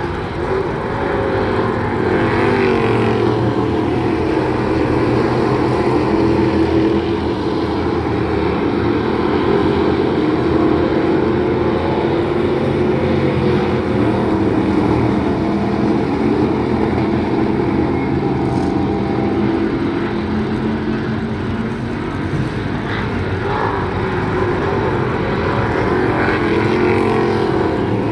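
Several dirt-track stock cars racing around an oval. Their engines run hard together, the pitch rising and falling as the cars accelerate down the straights and ease into the turns.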